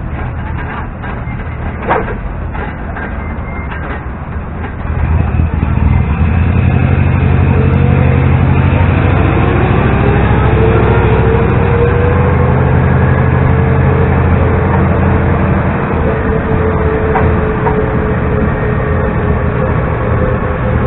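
LiAZ-677M city bus's petrol V8 engine and drivetrain running under load, heard at the open window. It gets louder about five seconds in, and a whine rises in pitch as the bus gathers speed, then holds roughly steady. A single sharp click comes about two seconds in.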